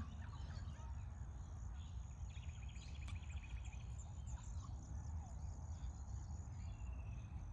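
Quiet outdoor ambience: a low steady rumble with faint, rapid chirping trills from insects or birds, first about two seconds in and again near the end.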